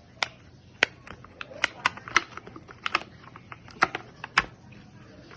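A dozen or so sharp, irregularly spaced clicks and taps over about four seconds.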